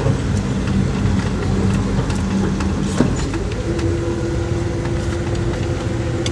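Car running and rolling slowly, heard from inside the cabin: steady low engine and road noise with a humming tone that steps up to a higher pitch a little past halfway. A single sharp click sounds about three seconds in.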